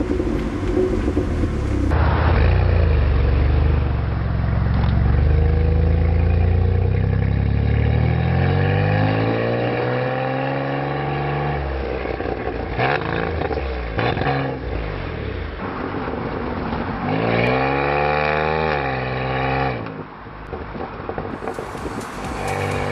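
A car's engine revved while standing, heard at its chrome exhaust tailpipe. The revs climb slowly and drop off, then come a couple of quick blips, and then one more rise and fall.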